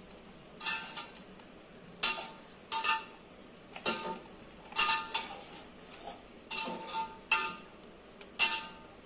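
Fingers scrunching crispy fried onions against a thin metal plate, giving about a dozen short, irregular metallic clinks that ring briefly.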